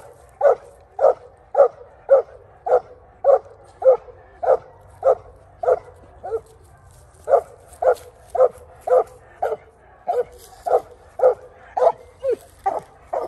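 Coonhound barking up a tree at a treed raccoon, a steady chop of short barks about two a second, with one brief pause midway.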